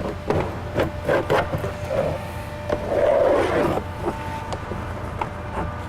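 Plastic trim tool being worked up under the bottom edge of a car door panel: a series of light clicks and knocks of plastic on plastic and metal, with a louder scraping rub about three seconds in.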